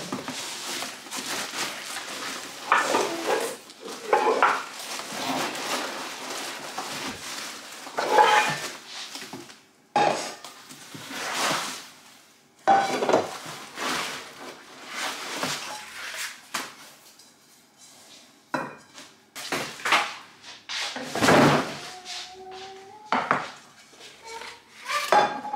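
Non-stick Tefal pans and pots knocking and clattering against each other and the table as they are lifted out of a cardboard box and stacked, with packing and cardboard rustling between the knocks. Near the end a couple of knocks leave a short metallic ring.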